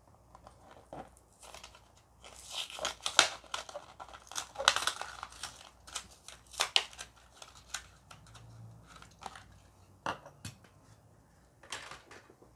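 A clear plastic blister pack being torn and peeled open from its cardboard backing card, crackling and crinkling in quick bursts that are densest in the first half. Sparser crackles and clicks follow as the toy car is worked free.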